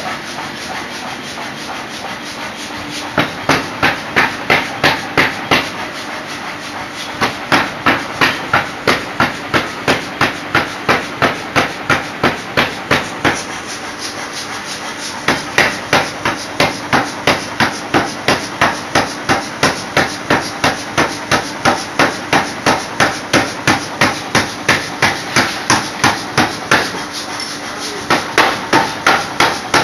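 Mechanical power hammer forging a hot Damascus steel billet: rapid heavy blows at about three a second, in runs of several seconds with short pauses between, over a steady background rush.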